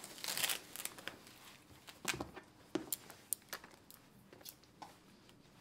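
Velcro of a blood-pressure cuff ripped open with a short tearing sound, followed by scattered rustles and small clicks as the cuff and its tubing are handled.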